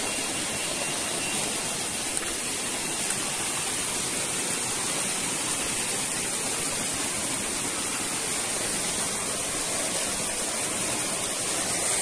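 Shallow forest stream running over rocks and pebbles: a steady rush of water.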